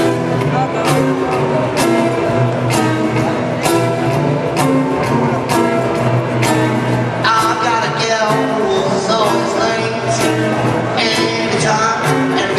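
Music with a steady beat, about one strong beat a second, and a singing voice coming in about halfway through.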